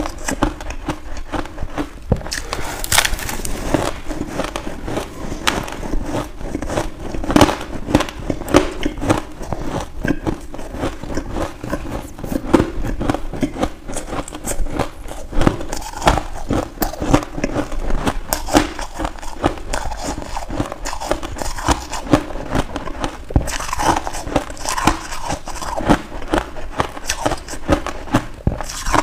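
Close-miked crunching of finely crushed ice being bitten and chewed: a dense, irregular run of hard crunches and crackles.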